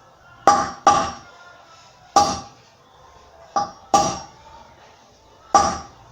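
Six hammer blows on metal, each with a short ring, in uneven spacing: a motorcycle front wheel bearing being tapped into the hub.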